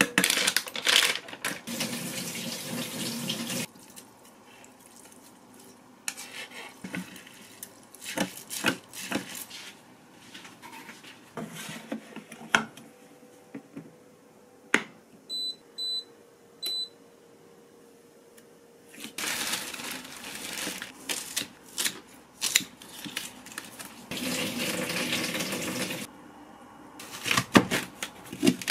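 Water running from a kitchen tap, stopping a few seconds in. Midway a rice cooker gives three short high electronic beeps as its buttons are pressed. Later the tap runs again for several seconds, and near the end a knife chops green onions on a cutting board.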